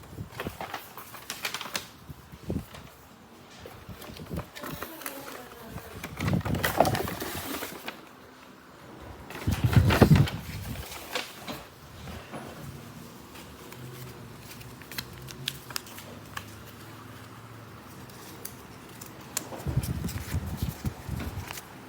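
Handling noise: scattered clicks, taps and rustles, with louder bumps about six, ten and twenty seconds in.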